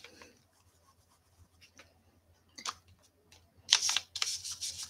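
A foam blending brush scrubbed in quick swishing strokes, loading green ink and rubbing it on; it starts about three and a half seconds in, after a near-silent stretch broken by one light tap.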